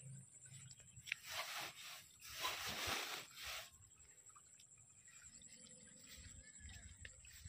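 Cut grass and leafy weeds rustling as they are handled, in two short bursts between about one and four seconds in.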